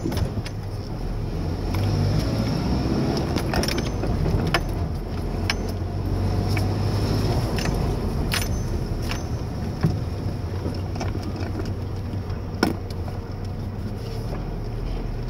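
Ford pickup truck's engine running at low speed, heard from inside the cab as a steady low hum, a little louder for a few seconds early in the stretch. Scattered sharp clicks and rattles come through over it.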